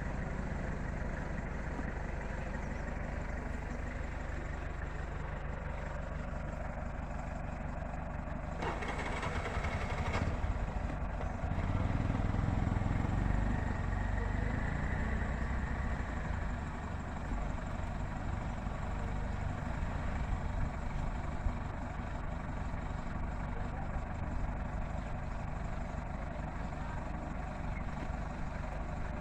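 A steady engine idling throughout, with a short rushing burst about nine seconds in and a slightly louder low rumble a few seconds later.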